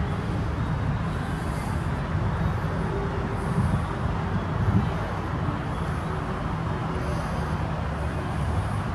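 Steady low rumble of vehicle engines running.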